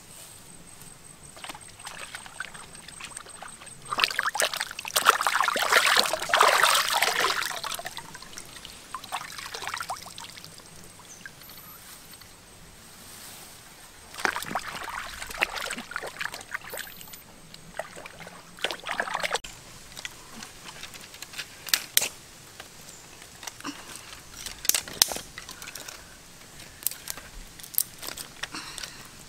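Water being poured and sloshed in bursts, the largest starting about four seconds in and another about fourteen seconds in, with scattered clicks in between.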